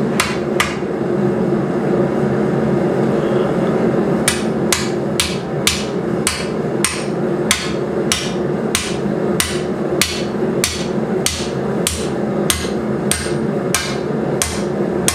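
Blacksmith's hammer striking a drift to open a hot punched hole in steel, with no forge lube on the drift: two blows at the start, then after a pause of about three seconds a steady run of about twenty blows, a little under two a second. A steady low hum runs underneath.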